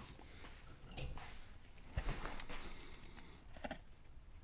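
A few faint, scattered metallic clicks and taps as a small pick tool and fingers work at the C-clip of an Abus Bravus 4000 lock cylinder.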